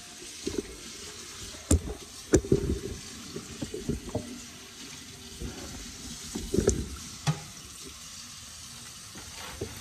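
Kitchen prep handling: several knocks and bumps of items on the counter, the loudest about two seconds in and again near seven seconds, over a steady low hiss.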